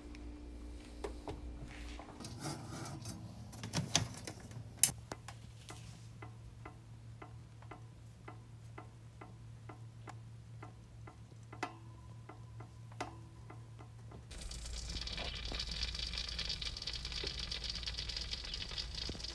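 Oven running with a steady low hum and regular ticking, about two ticks a second, plus a few scattered clicks. About fourteen seconds in the sound changes to a steady hiss.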